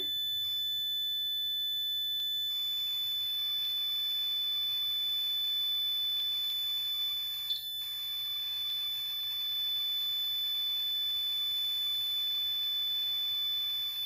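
Battery-powered piezo buzzer of a homemade fire alarm sounding one continuous high-pitched tone, with a brief waver about halfway through. It has been set off by heating the alarm's tube-light starter with a match, which closes the circuit.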